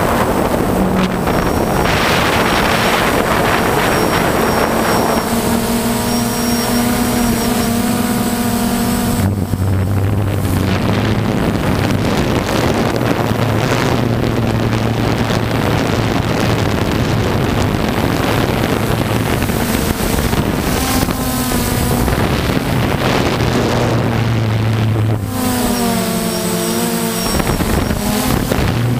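Quadcopter's electric motors and propellers whirring steadily, heard from its own camera, with a hum that shifts pitch a couple of times as the motor speed changes. Wind rushes over the microphone.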